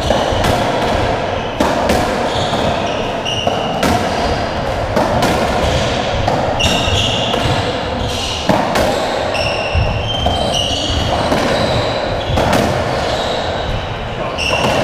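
Racketball being played on a squash court: the ball struck by rackets and hitting the walls and floor in sharp, echoing knocks every second or two, with short high squeaks in between.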